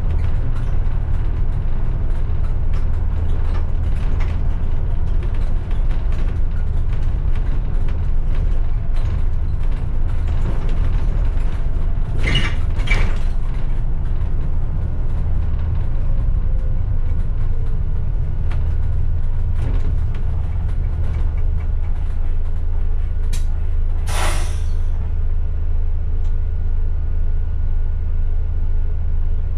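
Bus engine running with a steady low drone, heard from the cab. Two short bursts of air hiss come about halfway through, and a longer air-brake hiss comes a little before the end as the bus comes to a stop.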